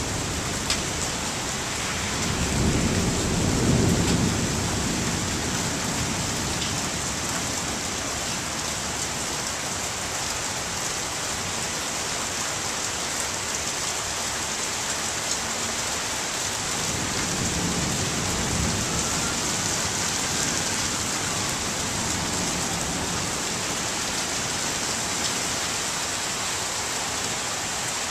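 Heavy rain falling steadily, with rumbles of thunder: the loudest rolls a few seconds in, and a fainter one comes a little past halfway.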